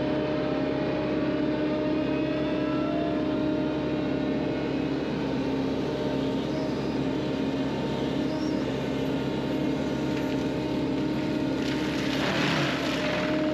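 A steady mechanical hum holding two even tones, with a brief burst of harsher, rougher noise about twelve seconds in.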